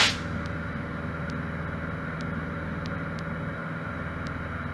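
Cessna 152's four-cylinder Lycoming engine droning steadily in cruise flight, heard as a low, even hum inside the cockpit, with faint ticks about once a second.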